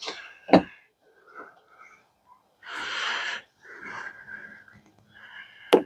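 Sharp plastic clicks and snaps from pushing windshield cowl trim and rubber pieces back into place: two near the start and a loud one near the end. In between come hissing, effortful breaths.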